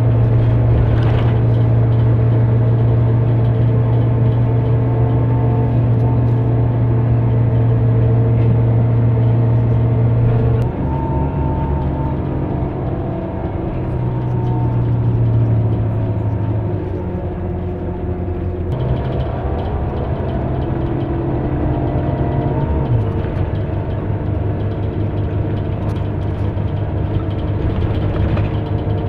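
Running noise heard from inside a moving vehicle: a loud, steady low hum with a few pitch tones on top. It steps down about ten seconds in, and the tones shift and glide again later on, as the vehicle changes speed.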